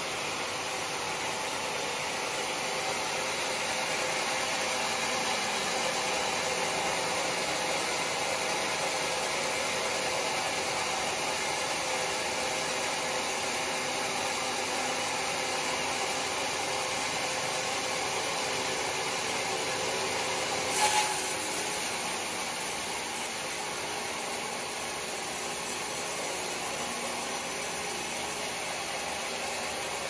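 Band sawmill running and cutting lengthwise through a large squared log: a steady hiss of the blade in the wood over the machine's hum, with one brief sharp knock about 21 seconds in.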